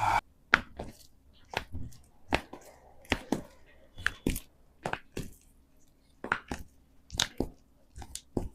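An irregular series of sharp cracks and pops, about twenty in all: joints cracking as a chiropractor adjusts the body.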